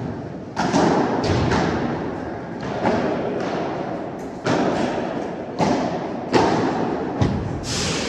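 Padel rally: a ball is struck back and forth by padel rackets and bounces on the court. It gives sharp hits about once a second, each ringing on in the echo of the large indoor hall.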